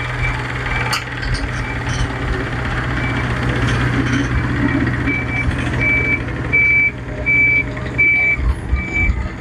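Back-up alarm of a reversing machine beeping at a steady pitch, about one and a half beeps a second, over the machine's steady engine hum. The beeps are faint at first and clear from about five seconds in.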